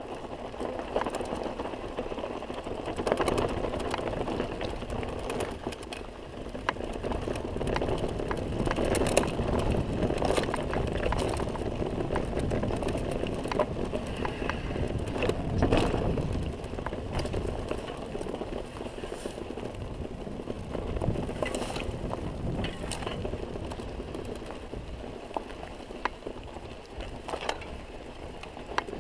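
Mountain bike rolling downhill on a dirt and gravel trail: a steady rumble of tyres on the ground with frequent rattles and knocks from the bike over bumps.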